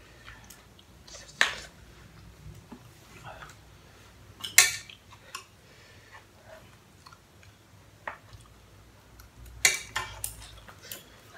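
Wooden chopsticks clicking and scraping against a pan while noodles are picked up: a few sharp clicks, the loudest about halfway through and a couple more close together near the end.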